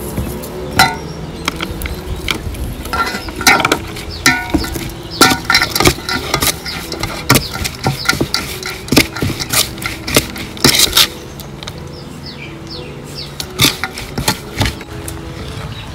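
A metal spoon knocking and clinking against a stainless steel mixing bowl in irregular strikes, thickest in the middle stretch, while a salad is tossed.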